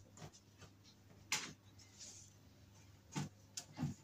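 A thin base sheet being laid into a wooden baby cot and pressed down, giving a few light knocks and taps against the wooden frame. The sharpest comes about a second in, and two duller ones come near the end.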